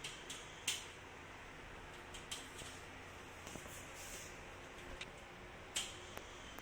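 Scattered light clicks and rustles of handling, the two sharpest a little under a second in and near the end, over a faint steady background hiss.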